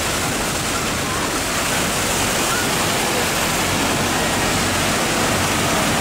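The Rhine Falls, a very large river waterfall, rushing and churning in a steady, unbroken wash of white noise, heard close up from the water at its foot.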